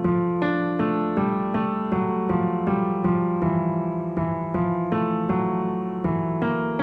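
Background piano music: a gentle melody of single notes, struck about two to three times a second, each note fading after it.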